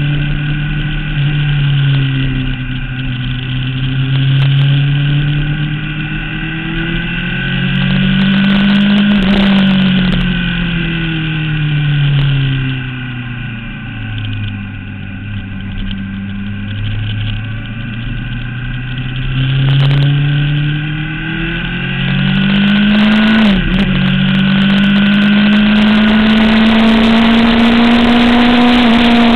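Engine of a vehicle lapping a race track, heard onboard: it speeds up, slows under braking, speeds up again, dips briefly at a gear change about three quarters of the way through, then holds high revs, with wind and road noise throughout.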